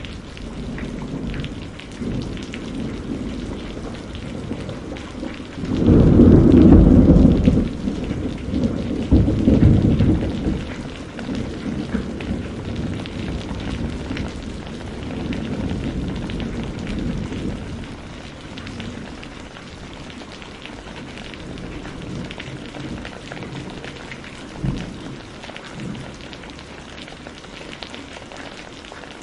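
Thunderstorm: steady rain with a loud clap of thunder about six seconds in that rolls on in a second surge and dies away over several seconds. Fainter rumbles follow, and there is a short low thud near the end.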